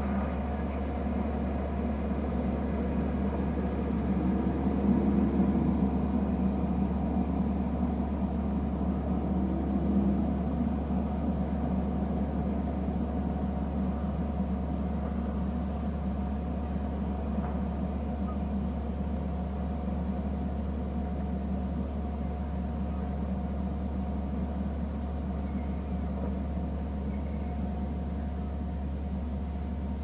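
Steady low hum and rumble, getting louder between about four and seven seconds in and again briefly around ten seconds.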